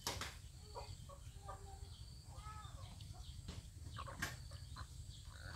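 Chickens clucking in short, arched calls, with scattered clicks and rustles.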